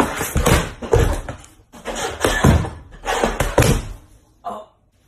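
Heavy thumps and clatter of a person stomping and falling on a wooden floor while wearing cups as shoes. There are four loud bangs about a second apart, then a short, fainter sound just before it goes quiet.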